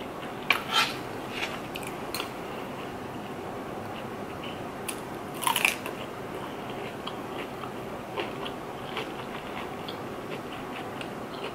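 Crunchy bites into raw cucumber, two loud crunches about half a second and five and a half seconds in, each followed by crisp chewing crunches.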